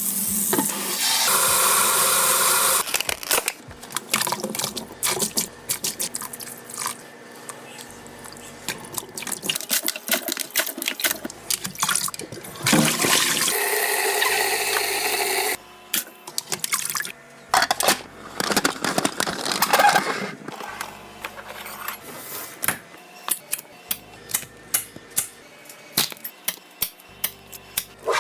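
Liquid poured into containers in three long stretches, with many short clicks and knocks of containers and lids being handled between them.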